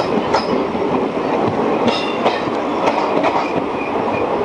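Express train passing close at speed: a steady rumble of steel wheels on the rails, with scattered sharp clicks over the rail joints and short high wheel squeals.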